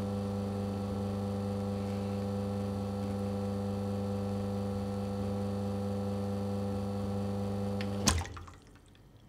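Bezzera Duo espresso machine's pump humming steadily as a single-cup espresso shot runs into the cup, with the one-cup button's volume being programmed. About eight seconds in the pump cuts off with a sharp click as the shot is stopped.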